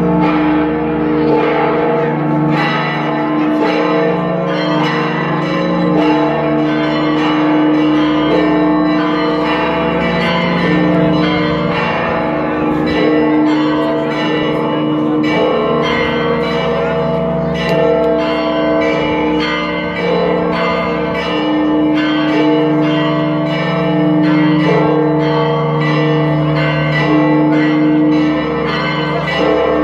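Church bells pealing: several large bells struck in quick succession, several strikes a second, their tones overlapping and ringing on continuously.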